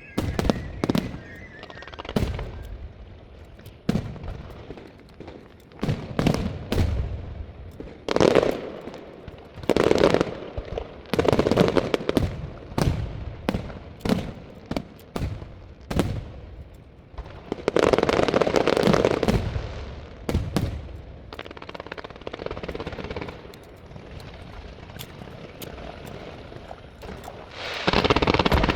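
Large fireworks display: rapid runs of sharp bangs and stretches of dense crackling bursts, easing off for a few seconds before another loud crackling burst near the end.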